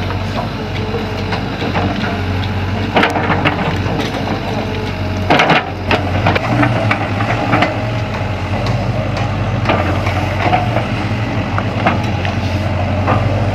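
Sany excavator's diesel engine running steadily, with crunching and scraping as the bucket works soil and sand, and a louder clatter about five seconds in.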